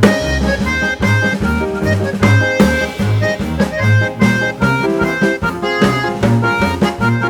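Instrumental music with a steady drum beat, a bass line and held melody notes.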